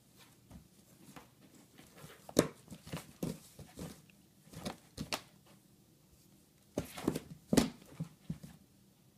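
Cardboard box scraping, rustling and knocking irregularly as two cats wrestle in it and on top of it, with a sharper knock about two seconds in and another near the end.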